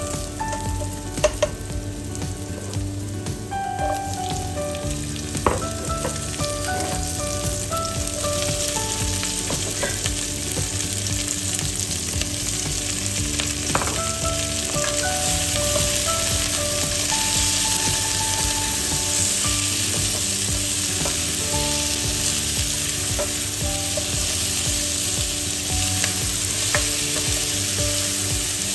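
Chopped vegetables sizzling in hot oil in an aluminium saucepan, stirred with a black plastic ladle-spoon that knocks against the pan now and then. The sizzle grows louder and hissier about a third of the way in, as onions, bell peppers and tomatoes go into the pan.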